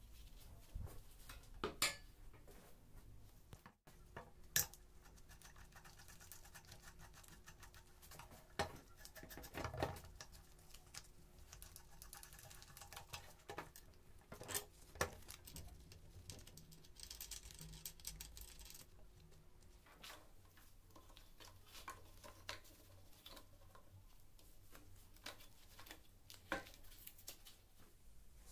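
Scattered light clicks, taps and scrapes of metal tool parts being handled and fitted together on a wooden workbench: an ice auger's steel shaft and a red angle-grinder gearbox being joined and pinned.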